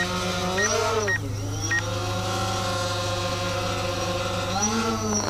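DJI Phantom quadcopter running close by, its motors giving a steady multi-tone whir whose pitch swells up and falls back about a second in and rises again near the end. A few short high beeps sound in the first two seconds.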